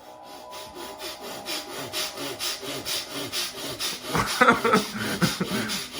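A man doing a rapid, forceful breathing exercise: harsh rhythmic breaths, several a second, getting louder about four seconds in.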